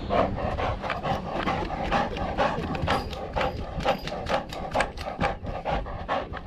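A dog close to a body-mounted camera, making a fast, fairly regular run of sharp clicks, about four a second.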